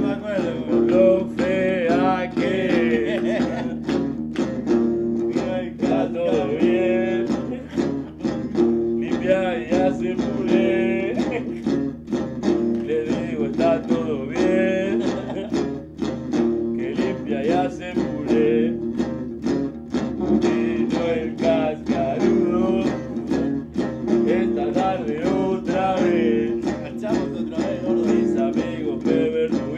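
Live rock-and-roll on electric guitar: lead lines with bent, wavering notes over steady held chords, with sharp note attacks throughout.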